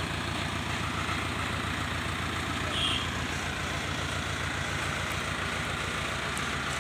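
The diesel engine of an Escorts Hydra 14 mobile crane runs steadily with a fast, low throb while the crane carries a heavy suspended steel tank.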